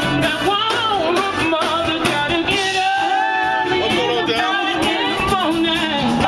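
A live band playing, with a singer, amplified through a PA system on an outdoor stage.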